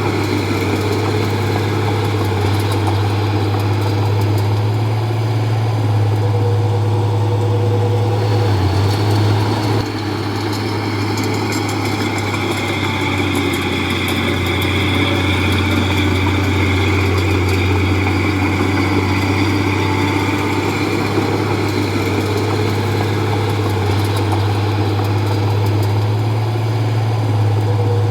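Heavy diesel engine of earthmoving machinery running steadily with a deep, constant drone, dipping slightly in level about ten seconds in.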